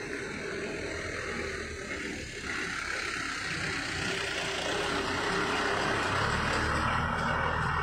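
Passenger bus driving past at close range, its engine and tyre noise growing louder as it comes alongside.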